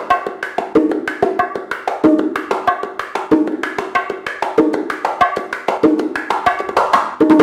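Bongos played with bare hands in a quick, steady salsa pattern, the basic martillo: a continuous run of light palm and fingertip strokes on the small drum, with a deeper open tone ringing out on the larger drum about once every second. It closes with a heavier hit near the end.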